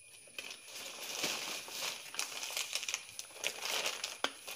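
Plastic food packets crinkling and rustling as hands pick them up and shuffle them, with irregular crackles starting about half a second in.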